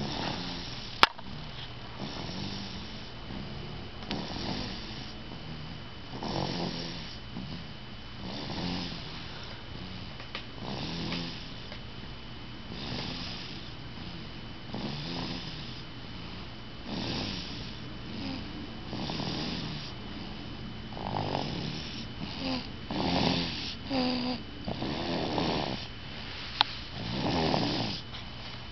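Snoring in a slow rhythm, one breath about every two seconds, louder toward the end. A sharp click about a second in and another near the end.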